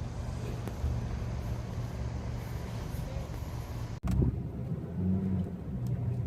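A steady low rumble, then after an abrupt cut about four seconds in, car cabin noise while driving, with a few light clicks.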